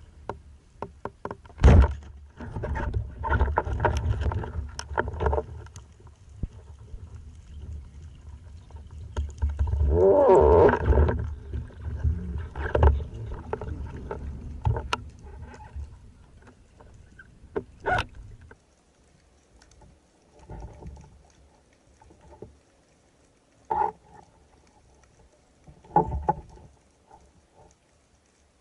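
Underwater recording of a spearfishing dive: scattered sharp knocks and clicks, with a long stretch of bubbling and gurgling about ten seconds in, then fewer, quieter knocks.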